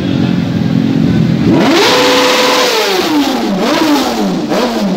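Sportbike engine idling, then revved hard about one and a half seconds in: the pitch climbs steeply, holds high for about half a second and falls away, followed by two shorter throttle blips before it settles back down.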